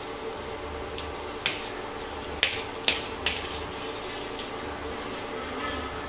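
A metal spoon clinking and scraping on a stainless-steel plate while chopped onions are scooped off it, with four sharp clinks in the middle. A steady low hum runs underneath.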